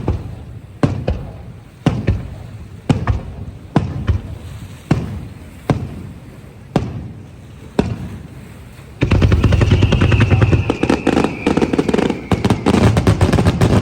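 Aerial fireworks bursting: single sharp bangs about once a second, each trailing off in an echo, then, about nine seconds in, a dense rapid barrage of crackling reports with a faint falling whistle over it.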